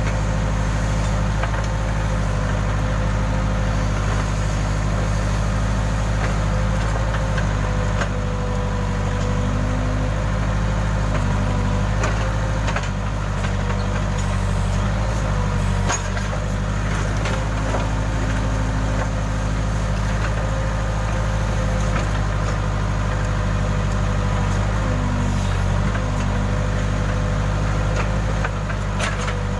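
Case backhoe loader's diesel engine running steadily under load while digging, with a steady whine over it and occasional knocks and clunks.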